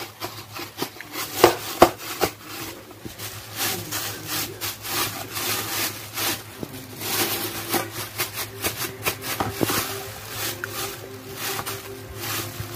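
A plastic-bagged hand rubbing and pressing soft yeast dough flat in a stainless steel bowl, in a run of irregular rubbing strokes, with two sharper clicks about two seconds in.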